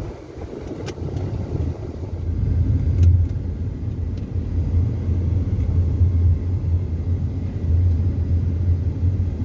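Car driving on a road: a steady low rumble of engine and tyres that grows louder about two seconds in.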